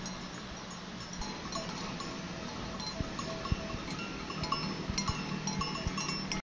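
Bells on walking cattle clinking irregularly, many short ringing notes, over a steady low hum.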